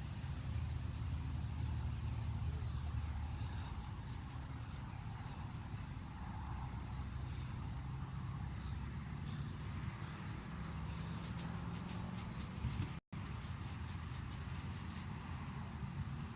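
A steady low machine hum, like an engine or motor running nearby, with faint scratchy ticks at times. Near the end it cuts out for an instant.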